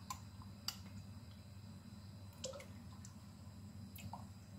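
Thick yogurt dripping and plopping from a cup into a pot of yogurt: a few faint separate plops, spread about a second apart.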